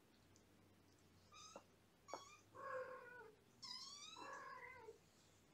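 Cats meowing: about five faint, high meows, two short ones and then three longer calls that rise and fall in pitch.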